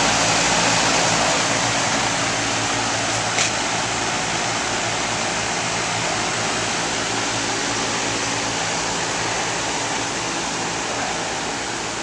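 American Standard 5-ton rooftop package heat pump running in heating mode: its condenser fan, spinning at about 1,000 RPM, blows air with a steady rushing noise over a low steady hum. It grows slightly fainter toward the end.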